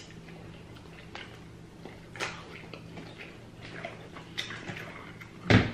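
Close-miked eating of Flamin' Hot Cheeto–crusted rotisserie chicken: chewing with scattered mouth smacks and crunches over a faint steady hum. A louder sharp smack or crunch comes near the end.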